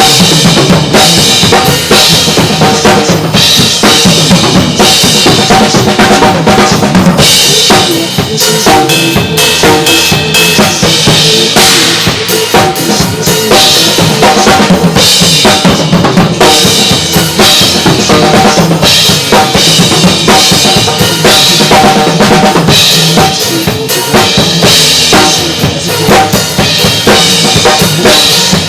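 Drum kit played steadily along to a pop backing track, the drums loud over the accompaniment.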